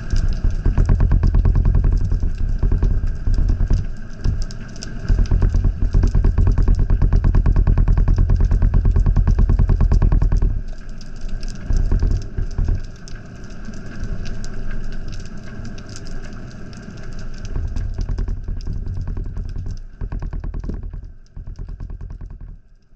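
A rapidly pulsing, engine-like mechanical drone heard through an underwater camera. It is loudest for the first ten seconds or so, then weakens and turns uneven, fading near the end.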